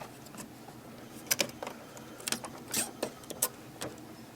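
Scattered plastic clicks and rustling as hands handle an inkjet printer's parts and its taped-in packing pieces, about half a dozen short sharp sounds at irregular spacing.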